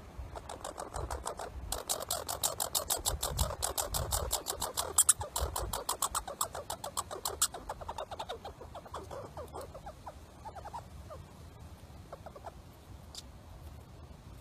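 A squirrel's rapid chattering call, about seven notes a second. It starts about two seconds in, runs for several seconds, then slows to scattered notes and dies away.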